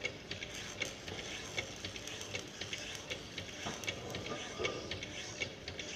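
Power hacksaw sawing through a thick steel bar, its blade frame stroking back and forth with an even, repeating clicking over a low machine hum.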